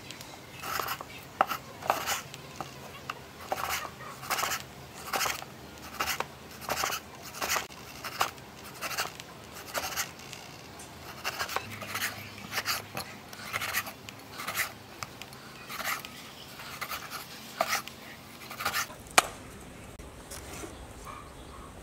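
Cleaver slicing raw fish fillet on a thick wooden chopping block: short cutting strokes at a steady pace, a little over one a second. The strokes stop about nineteen seconds in, right after one sharper, louder knock.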